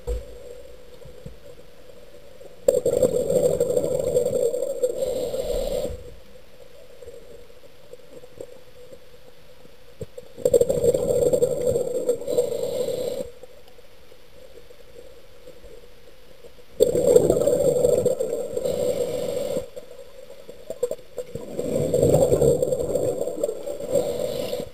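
A diver breathing on a closed-circuit rebreather, heard underwater: four long breath sounds, each about three seconds, with quiet gaps of several seconds between them.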